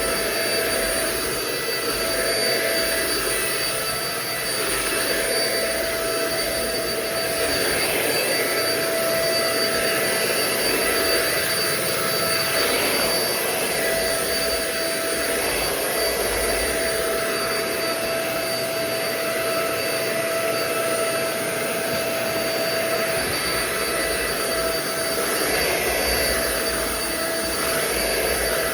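Euro-Pro Shark bagless stick vacuum (EP600) running steadily, a constant motor whine with a whooshing airflow that swells and eases slightly as the vacuum is pushed back and forth over the floor.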